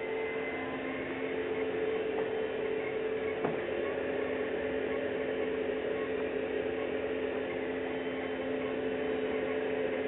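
Toyota Prius coolant heat-storage pump running after shutdown, a steady electric hum of even pitch, as it pumps hot engine coolant into the car's thermally insulated coolant tank.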